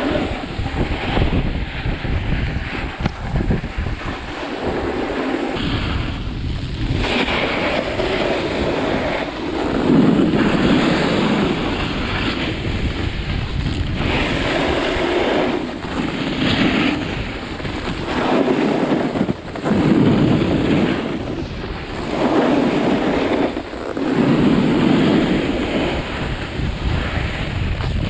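Wind rushing over a GoPro's microphone while snowboarding, mixed with the scrape of snowboard edges over cut-up piste snow. The noise swells and fades every couple of seconds as the boards turn.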